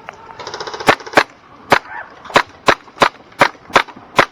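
Airsoft gun firing single shots: about nine sharp cracks at uneven intervals of a third to half a second, with a brief buzzing tone just before the first one.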